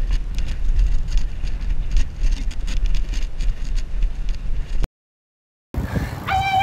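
Wind buffeting the microphone of a bike-mounted camera while riding, a steady low rumble mixed with road noise, which cuts off abruptly just before five seconds. After a brief silence, a new outdoor recording begins and a high voice calls out near the end.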